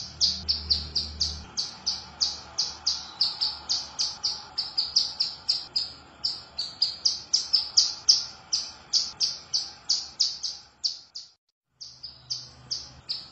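Female ciblek gunung (mountain prinia) calling: a fast, steady string of short, sharp high notes, about four a second, with a brief break about eleven seconds in.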